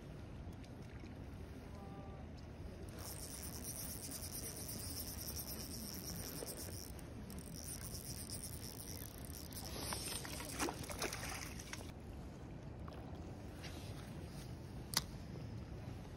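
A hooked trout splashing at the surface close in, in hissy bursts from a few seconds in and a cluster of splashes about ten seconds in, over low steady outdoor noise. A single sharp click near the end.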